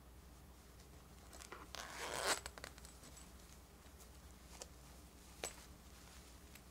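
Zipper on a plush toy's fabric shell being pulled open in one short rasping run about a second and a half in, followed later by a couple of faint clicks.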